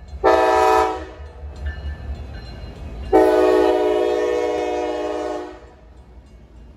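Norfolk Southern diesel freight locomotive's multi-chime air horn: a short blast near the start, then a long blast of about two and a half seconds from about three seconds in, over the low rumble of the passing train.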